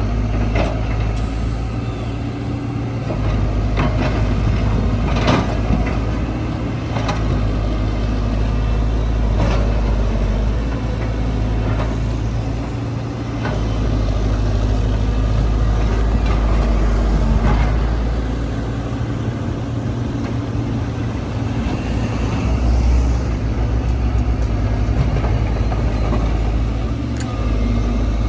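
Heavy machine's diesel engine running steadily, with scattered knocks and clanks every few seconds.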